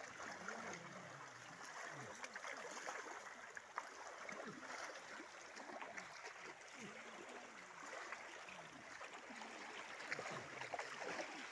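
Water swishing and splashing as a group of people wade through a shallow stream, with faint distant voices talking underneath.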